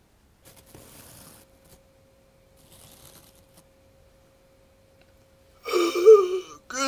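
Mostly quiet, with faint rustling and a faint steady hum, then a brief loud vocal sound about six seconds in.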